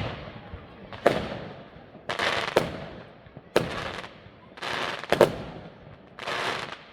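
Fireworks going off: a series of sharp bangs and short hissing bursts, about one a second, each fading away in an echo.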